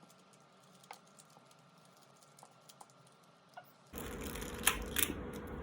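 Small plastic pieces of a GAN 11M Pro speedcube clicking as the cube is taken apart piece by piece. The clicks are faint and scattered at first, then sharper over a steady hiss from about four seconds in.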